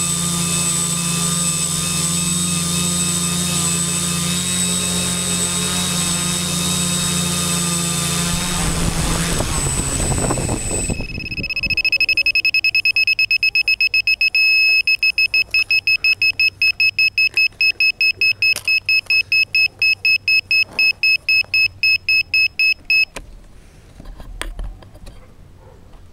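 Quadcopter's electric motors and propellers running with a steady whine and hum, then spinning down about nine seconds in as it lands. A few seconds later an electronic beeper on the craft sounds high, rapid beeps, slowing to about three or four a second, then stops abruptly.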